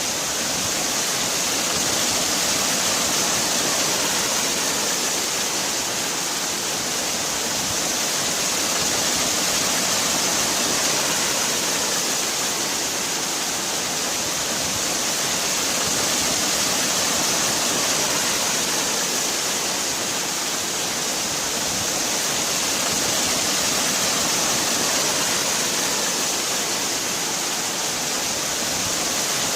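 Waterfall: steady rushing of falling water, swelling and easing gently every several seconds.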